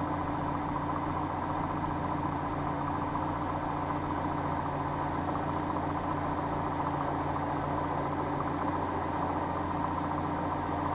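Light single-engine propeller aircraft's piston engine idling steadily while taxiing, heard from the cockpit as an even drone.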